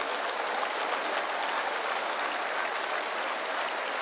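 Large theatre audience applauding steadily, a dense patter of many hands clapping.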